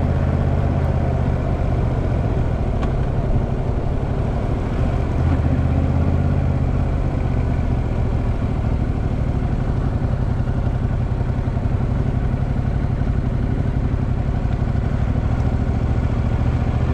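Motorcycle engine running at low, steady revs while the bike rolls at town speed, heard from the rider's seat, with road and wind noise.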